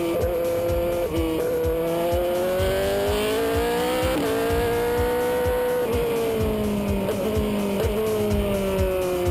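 Ferrari V8 of an A1GP single-seater race car heard onboard at speed, the revs climbing for the first four seconds or so, then easing off and falling steadily through the second half as the car slows.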